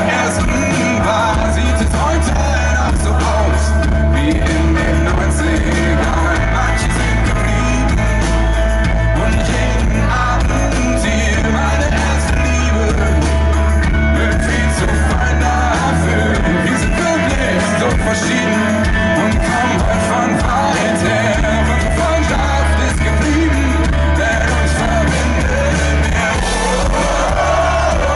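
Live pop-rock band playing loudly with a lead singer, through a concert PA, with strong bass throughout.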